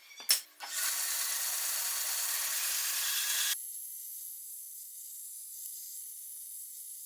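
Wood being worked by hand with a tool: a couple of short knocks, then a steady rasping stroke of about three seconds that stops abruptly, leaving only a faint high hiss.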